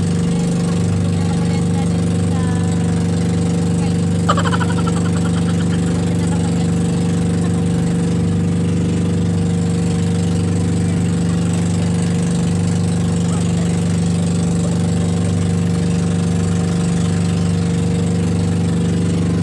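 Outrigger boat's engine running steadily under way: a loud, constant drone with a strong low hum that holds one pitch throughout.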